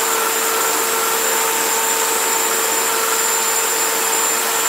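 Electric hand mixer running at a steady speed, its beaters whisking egg yolks and sugar in a glass bowl: an even motor whine with a thin high tone over a rushing hiss.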